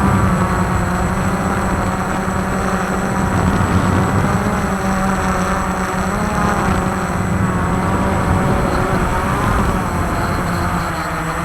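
Walkera QR X350 quadcopter's brushless motors and propellers whining in flight, the pitch drifting up and down as the throttle changes, over a heavy low rumble.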